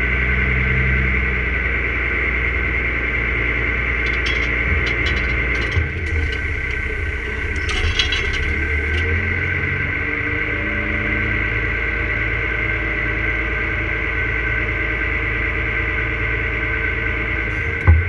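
New Holland T6050 tractor engine running steadily, heard from inside the cab, with a steady high whine over the engine hum. A few light ticks come in the middle, and a single sharp knock near the end as the reversible plough is being turned over.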